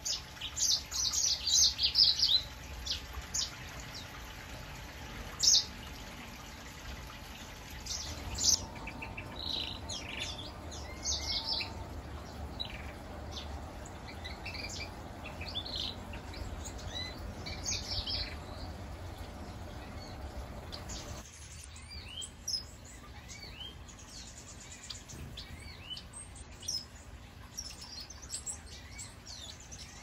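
Aviary finches and canaries chirping and twittering: many short, high calls, busiest and loudest in the first few seconds and more scattered after that, over a low steady background hum.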